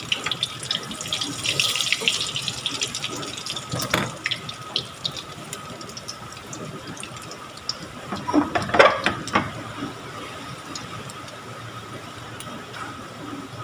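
Shredded sweet potato fritters sizzling and crackling in hot oil in a pan, heaviest in the first few seconds as one is flipped with a spatula. A single knock comes about four seconds in, and a brief, louder clatter just before the nine-second mark.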